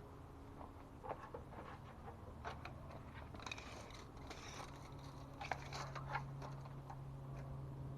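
Light rustling and small clicks of building material being handled, over a steady low hum that grows louder in the second half.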